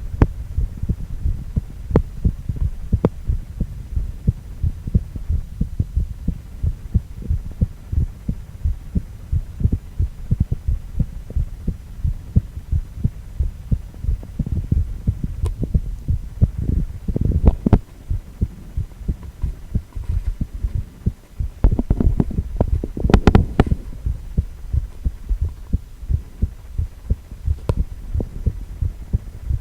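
A man's heartbeat: a steady run of low, muffled thuds repeating rhythmically, with a few sharper knocks partway through.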